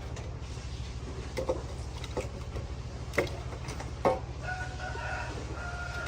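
A rooster crowing once, a drawn-out call in the second half, over a steady low hum. A few sharp knocks come before the crow.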